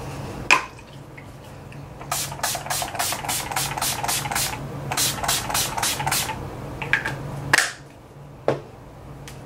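Urban Decay De-Slick setting spray misted from its pump bottle: a fast run of short hissing sprays, about four a second for some four seconds, with a few single sprays before and after.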